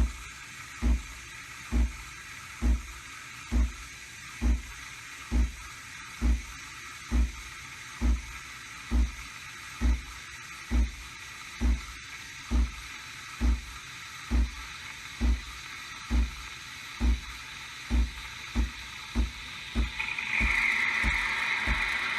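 Breville Nespresso Creatista Plus coffee machine running, with a regular low thump a little faster than once a second over a steady hiss. Near the end a louder hiss comes in and the thumps come closer together.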